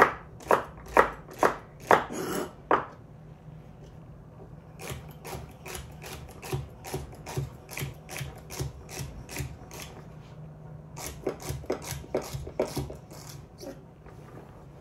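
Sabatier chef's knife chopping celery stalks on a wooden cutting board. First come several loud, sharp chops about two a second, then after a short pause a quicker, lighter run of chops, and another short run near the end.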